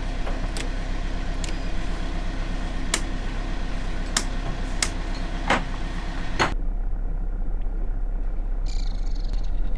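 A sailboat's inboard engine idling steadily, with about half a dozen sharp clicks of toggle switches being flipped on the DC power panel in the first six seconds or so.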